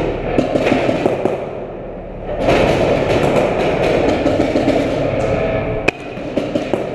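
Paintball markers firing, quick strings of sharp pops and paintballs hitting barriers, with one especially sharp crack near the six-second mark.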